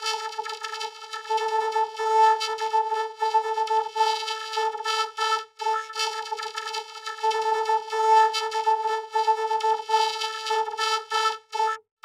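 Logo soundtrack run through a vocoder: a buzzy synthetic tone held on one note, stuttering and swelling with the rhythm of the underlying audio. It breaks off briefly about five and a half seconds in and again just before the end.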